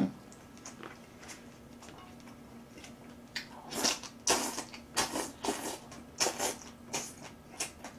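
Wet, close-up chewing and mouth smacking from a mouthful of kimchi. After a quiet start, the smacks come irregularly, one or two a second, from about three and a half seconds in.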